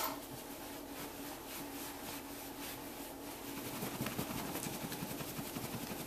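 A towel rubbing a wet cat's fur dry, a soft rustling that grows louder about halfway through, over a steady low hum.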